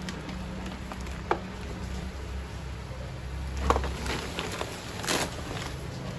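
Blue woven-plastic IKEA FRAKTA shopping bags rustling and crinkling as they are lifted, moved and set down, with a light click about a second in; the loudest rustles come around the middle and again near the end. A steady low rumble runs underneath.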